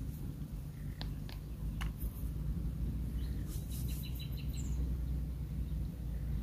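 Small birds chirping: a few short high chirps in the first two seconds, then a quick run of repeated chirps a few seconds in, over a steady low rumble.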